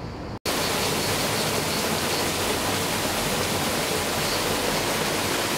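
Water falling from a stone wall into a pool, a steady, even rush of splashing water. It starts abruptly about half a second in, after a brief dropout to silence.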